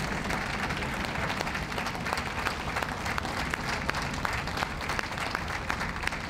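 Audience applauding steadily: many hands clapping at once, without a break.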